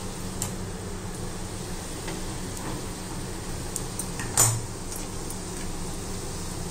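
Potato cubes frying in hot oil in a kadai, a steady low hiss, with faint clicks and one sharp knock about four and a half seconds in.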